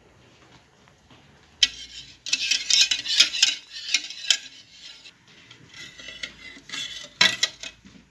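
Wire whisk beating egg in a ceramic plate: rapid clinking and scraping of the wires against the plate, starting about a second and a half in, easing off, then picking up again with a sharp clink near the end.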